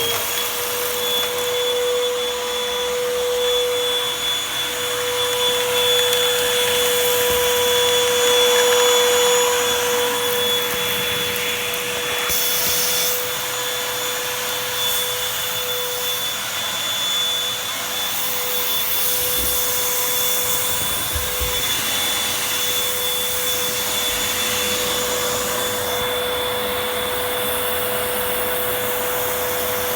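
Vacuum cleaner running steadily while sucking up dirt, a constant rushing hiss with a steady whine.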